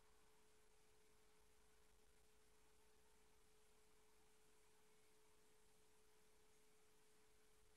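Near silence: faint room tone with a thin, steady, unchanging tone held throughout.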